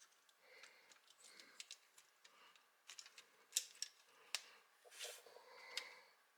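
Faint clicking and rubbing of plastic building-block parts being handled while motors are swapped out of a toy excavator, with a few sharper clicks in the second half.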